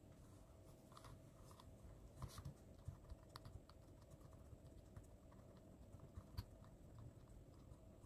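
Faint handling sounds: a cloth rubbing over a brass shoe buckle and leather, with scattered soft clicks and taps, a few sharper ones a couple of seconds in and past the middle, over a faint steady hum.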